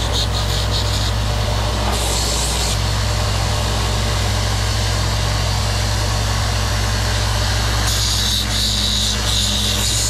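Benchtop belt sander running steadily, with a rasping hiss each time the edge of a cedar picket is pressed to the belt: in the first second, briefly around two seconds in, and again near the end.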